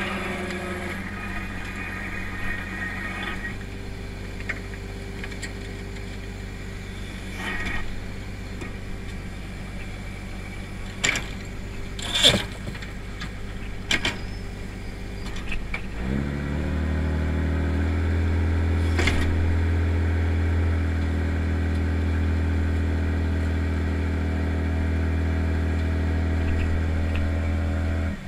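Crab boat's engine running steadily, with a whine from the pot hauler that stops about three seconds in. A few sharp metal clanks follow as the wire crab pot comes over the rail. About halfway through, the engine speeds up and runs louder and steady at the higher speed.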